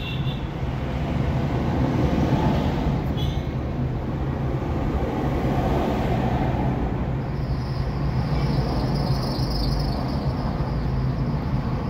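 Steady engine and road noise of a car driving in city traffic, heard from inside the cabin. A high hiss joins for a few seconds from about seven seconds in.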